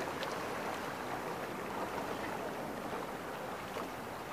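Water splashing and sloshing around a swimmer in a rocky seawater pool, over a steady wash of moving water.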